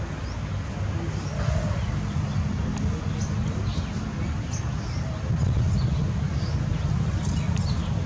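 Outdoor ambience: a steady low rumble with faint distant voices, and about eight short, high-pitched chirps scattered through it.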